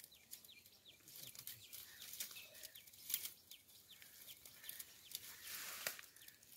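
Faint crackling and rustling of dry fodder stalks as a snake hook is pushed and worked through them, with birds chirping in short falling notes throughout.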